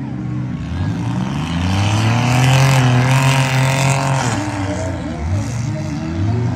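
Several demolition derby cars' engines revving in the arena, climbing in pitch to a loud peak about two to four seconds in, then easing off before another engine revs up near the end.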